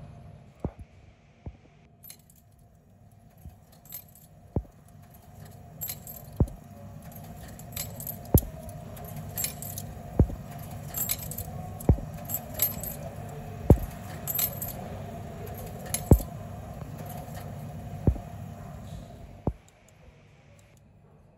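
Coins being fed into a Nippon Signal push-button ticket machine: an irregular series of sharp metallic clicks and clinks, roughly one every second or two, as each coin drops through the coin mechanism and is counted, over a steady low hum from the machine. The clinking stops a second or two before the end.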